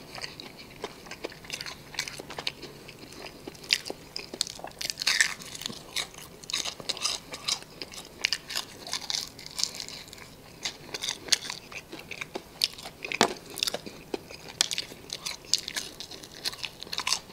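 A person biting and chewing crispy fried chicken up close: irregular crisp crunches, with one sharper crunch about two thirds of the way through.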